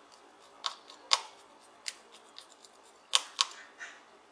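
Sharp plastic clicks and taps as a small Zebronics Bluetooth speaker's casing and rubber base pad are pressed and handled with the fingers, about five distinct clicks spread out irregularly.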